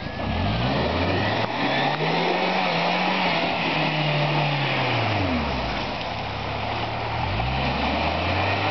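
Off-road Jeep's engine revving as it drives through mud: the revs climb over the first two seconds, hold, drop away about five seconds in, and climb again near the end, over a steady hiss.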